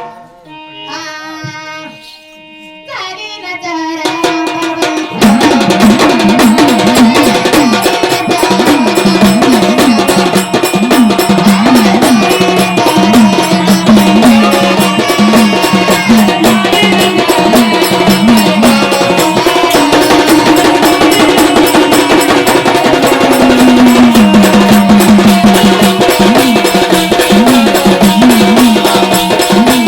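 Marathi waghya–gondhal devotional folk music: a sparse instrumental opening of held notes, then about five seconds in the full ensemble comes in with fast, steady drumming and a repeating wavering melody.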